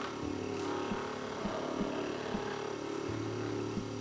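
Electric therapy device running at a high setting: a steady motor hum with a soft, regular pulse about two to three times a second.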